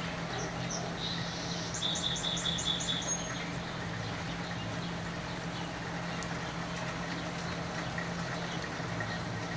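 Steady rain falling, with a steady low hum underneath. About half a second in a bird calls, two notes and then a quick run of about six high chirps ending near three seconds.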